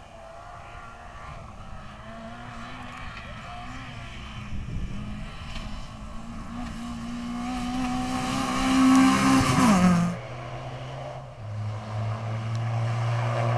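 Rally car engine running hard as the car comes along a gravel stage, growing louder and rising in pitch, with a hiss of tyres and gravel as it passes close about ten seconds in. The engine pitch then drops sharply and it quietens as the car drives away.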